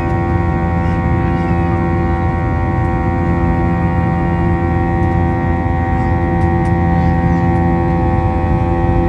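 Twin IAE V2500 turbofan engines of an Airbus A321-231 heard inside the cabin: a steady deep rumble with a cluster of constant whining tones layered above it.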